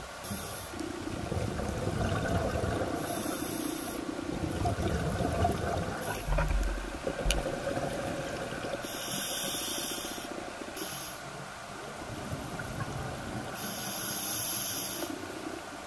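Scuba breathing heard underwater: regulator hiss with short bursts of exhaled bubbles every few seconds over a low watery rush. There is a dull knock about halfway through.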